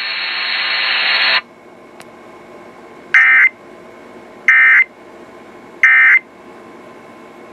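Emergency Alert System end-of-message signal: three short data bursts of warbling digital tone, evenly spaced about a second and a half apart, marking the end of a broadcast tornado warning. They come after about a second of steady radio hiss that cuts off abruptly.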